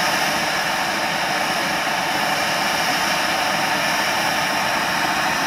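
Triplex ground fountain firework burning, giving a steady, even hiss as it sprays sparks.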